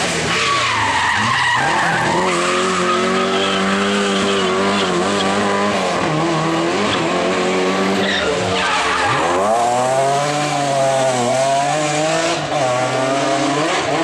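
Rally car engines at high revs as the cars pass, the pitch falling over the first couple of seconds, then holding and wavering with gear changes, before a sharp dip and a quick climb about eight and a half seconds in as a car brakes and accelerates away.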